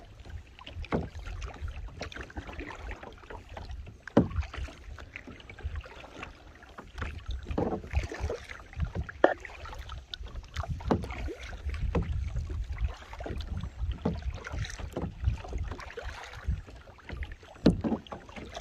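Kayak paddling: paddle strokes splash and drip water, with irregular knocks and thumps as the kayak and camera are jostled, over a low wind rumble on the microphone.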